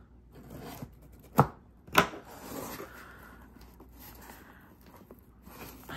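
Two sharp knocks of a cardboard shipping box handled against a tabletop, about half a second apart, then hands rustling and scraping over the cardboard.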